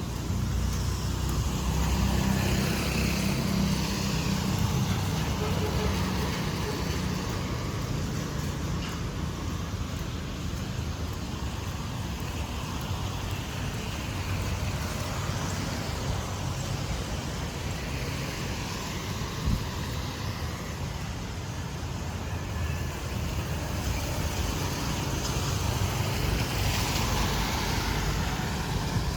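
Street traffic passing close by, mostly motorbikes with some cars: a steady low engine rumble that swells and fades as vehicles go by. A short sharp knock about two-thirds of the way through.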